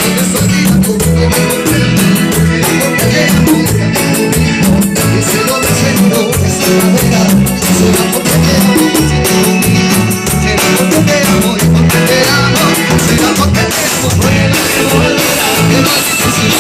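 Loud Latin dance music with a steady beat, bass line and guitar, with no lead vocal here.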